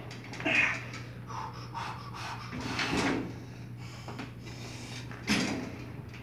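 Gym weight-stack machine worked under a heavy 140-pound load: a few separate knocks and shuffles from the stack and frame, with breaths of effort, over a steady low hum. The loudest knocks come about half a second in and again about five seconds in.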